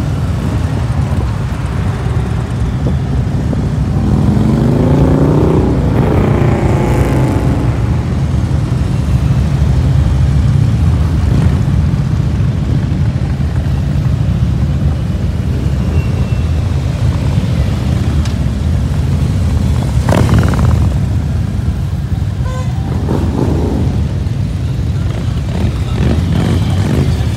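A procession of touring motorcycles riding past one after another, their V-twin engines running in a steady low rumble. Around five seconds in, one bike's engine sweeps up and down in pitch as it passes close, and a short sharp noise cuts through about twenty seconds in.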